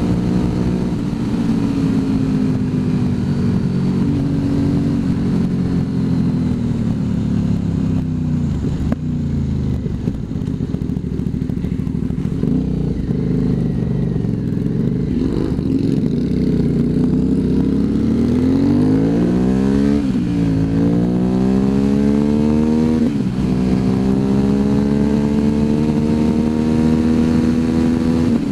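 Motorcycle engine heard from on the bike: the revs fall away as it slows and run low for several seconds. Then it accelerates in two rising pulls, each cut off by a sudden drop at an upshift, before settling at a steady cruise. Wind noise rushes underneath.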